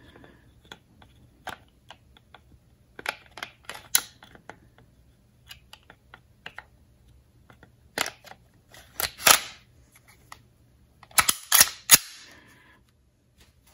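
Glock 17 Gen 4 pistol being reassembled: the slide is fitted onto the polymer frame's rails and worked by hand, giving a run of sharp clicks and scrapes. The loudest clusters of snaps come about three to four, eight to nine and eleven to twelve seconds in.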